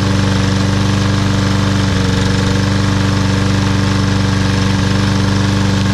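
Briggs & Stratton 550EX 140cc engine on a Troy-Bilt TB110 push lawn mower running steadily at a constant speed. It is shaking a little because rope is wrapped around the blade adapter.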